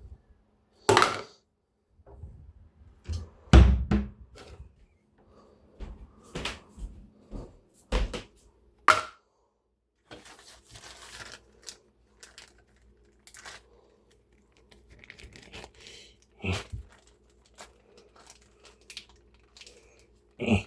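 A string of sharp knocks and thuds, as of dishes, utensils or a container being set down and handled, loudest about three and a half seconds in; then softer rustling and small clicks over a faint steady hum.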